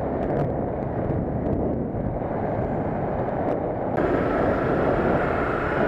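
Motorcycle riding noise: a Honda CBR 250R's single-cylinder engine running under way, mixed with wind rushing over the microphone. About four seconds in, the noise gets slightly louder and a higher hiss comes in.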